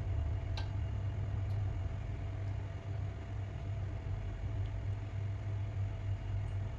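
Steady low electrical hum of a countertop electric hob heating a pan of fish in sauce, with a few faint light clicks of a utensil against the pan.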